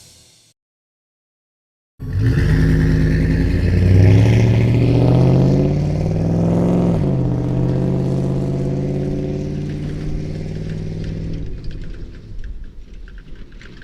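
5.3-litre LM7 V8 truck exhaust through a single-chamber performance muffler, starting about two seconds in and rising in pitch as the truck accelerates. The note briefly dips about five seconds in, then falls away gradually as the truck decelerates.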